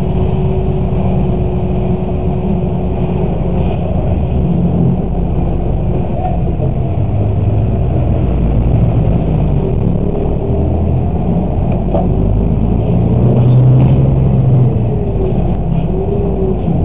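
Engine and road noise of a moving vehicle heard from inside its cab through a dashcam: a steady low rumble that swells slightly about three quarters of the way through.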